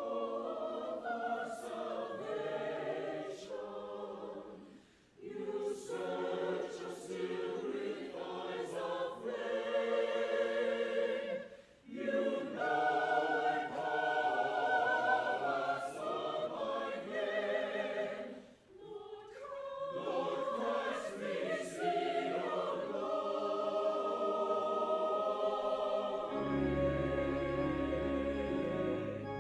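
Church choir singing, with brief pauses between phrases. Near the end, an organ comes in with low sustained pedal notes.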